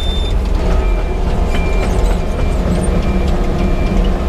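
Yanmar crawler excavator's diesel engine running steadily under digging load, with short knocks from the hydraulics and bucket and a faint repeating beep.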